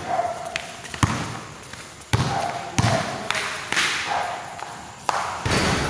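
A basketball bouncing on a court several times at uneven intervals during play, with players' voices in the background.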